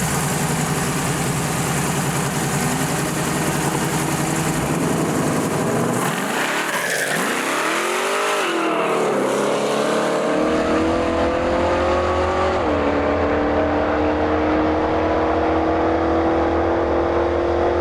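Supercharged LSA V8 of a VL Commodore drag car running hard under load. Partway through, its note sweeps up and back down in pitch, then holds a steady, slowly climbing note that drops once about 13 seconds in.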